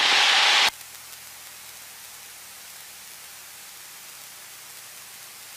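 Hiss from an open headset microphone on the aircraft's voice-activated intercom. It cuts off suddenly less than a second in as the intercom squelch closes, leaving only a faint steady hiss.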